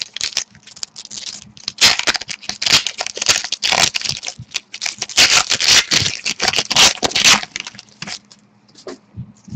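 A pack of trading cards being torn open, its wrapper crackling and crinkling in rapid bursts for several seconds before it falls mostly quiet near the end.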